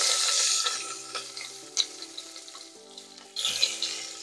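Sliced onions sizzling in hot olive oil in an Instant Pot's stainless steel inner pot, loud just after they go in and fading, with a fresh burst of sizzling a little past three seconds in.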